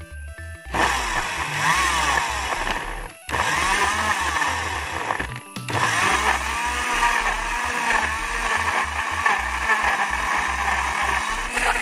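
Sujata mixer-grinder motor running at speed, blending chopped guava, apple and banana into juice. It starts under a second in and stops briefly twice, about three seconds in and again after about five and a half seconds, then runs on.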